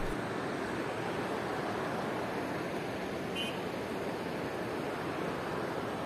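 The Beas River rushing: a steady, even wash of fast-flowing water.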